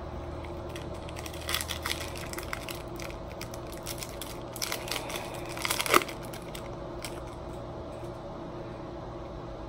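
Crinkling and tearing of a foil trading-card pack wrapper being opened by hand. It comes in bursts about a second and a half in and again around five to six seconds in, the loudest tear near six seconds, over a steady low hum.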